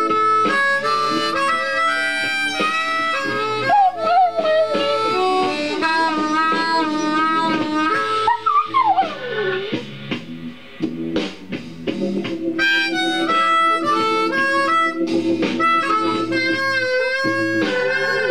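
Blues harmonica playing along to a guitar backing track, while a chihuahua howls along with it. Its wavering howls include one long howl falling in pitch about halfway through.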